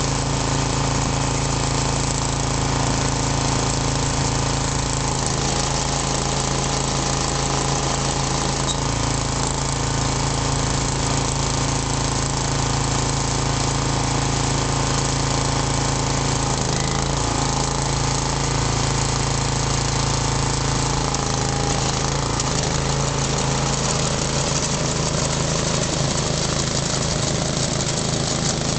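Ryan Greensaire 24 core aerator running, its small engine going steadily while the tines work. The engine note shifts a few times, and by the end the machine has driven forward, punching cores from the turf as it aerates.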